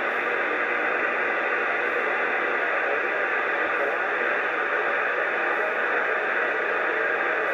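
Steady hiss of open-channel static from a two-way radio's speaker between transmissions, with no voices coming through.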